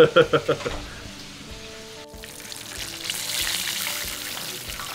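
Battered yellow jack fillets deep-frying in hot oil, a hissing sizzle that comes in after a cut about two seconds in and swells for a second or so, under faint background music. A voice is heard briefly at the very start.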